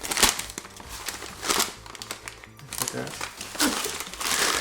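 Packaging crinkling and rustling in bursts as a parcel is unwrapped, over quiet background music.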